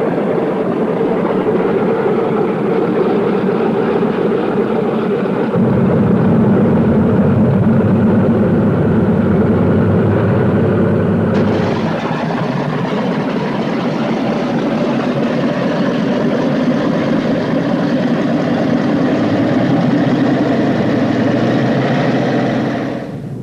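Propeller-driven piston aircraft engines running steadily, a dense drone that grows heavier about five seconds in and turns brighter about eleven seconds in.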